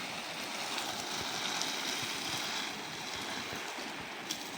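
Water running steadily from a pipe onto vegetable-garden beds, an even rushing hiss.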